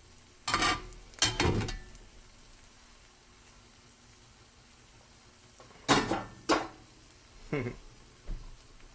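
Metal spatula scraping and knocking against a cast iron skillet as eggs are moved around in it: two sharp strokes near the start, two more about six seconds in, and a couple of lighter ones near the end. A faint frying sizzle fills the gaps.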